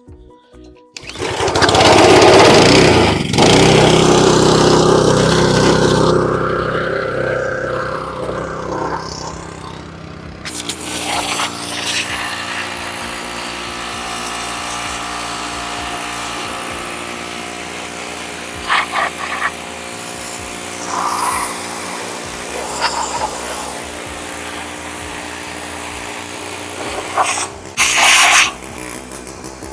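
Honda-engined Simpson 3200 psi gas pressure washer starting up about a second in and running loud. After several seconds it settles into a steady engine hum, with a few short noisy bursts over it.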